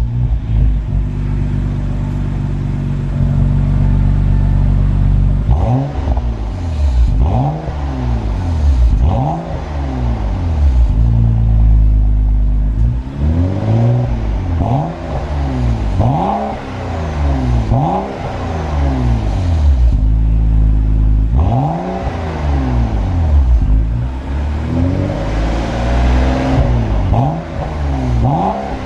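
BMW F12 640i's turbocharged 3.0-litre inline-six heard at the tailpipes through a HE'ART aftermarket exhaust system. It idles steadily for about five seconds, then is revved in a long series of quick throttle blips, each rising and falling in pitch, with brief drops back to idle between runs of blips.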